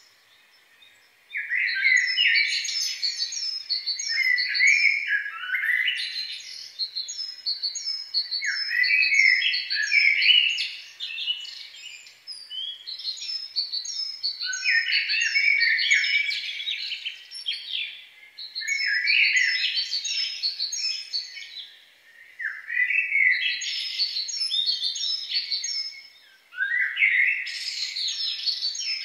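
Forest birdsong from several songbirds singing at once: quick series of high repeated chirps recur every few seconds over lower, jumbled warbling. It starts after a moment of silence.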